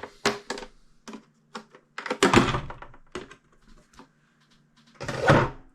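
Hard plastic parts of a car instrument cluster being handled and pried apart: a series of sharp clicks and light knocks, with two louder scraping clatters about two seconds and five seconds in.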